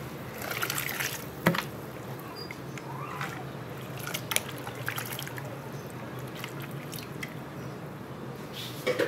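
Soaked rice and its water tipped from a plastic tub into a large pot of boiling water: splashing and trickling over the bubbling of the boil, with a few sharp knocks.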